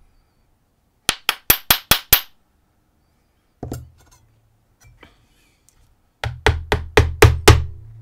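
Screwdriver handle tapping a brass lock core in quick light knocks, about five a second, jarring the last key pin loose from its chamber. There is a run of six taps, a single knock a little later, then seven louder taps near the end.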